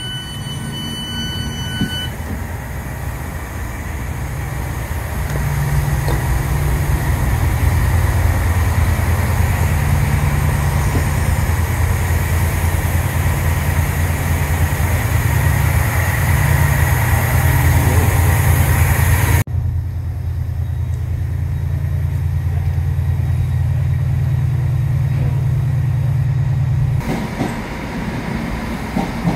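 Diesel trains idling at a station platform: a steady low engine rumble that grows louder a few seconds in. A high steady door-warning beep sounds over the first two seconds.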